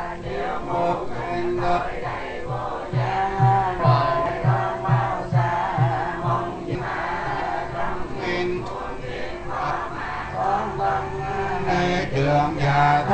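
Buddhist monks chanting a Mahayana (Bắc Tông) sutra in unison, held notes over a steady low beat of roughly two strokes a second.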